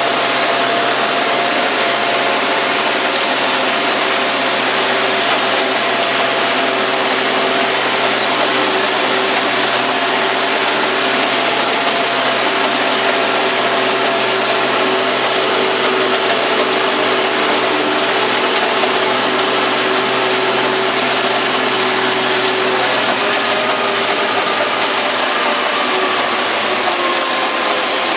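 Belarus 920 tractor's four-cylinder diesel running steadily under ploughing load, pulling a Kverneland Stenomat plough at about 10.5 km/h. The engine note shifts in pitch near the end.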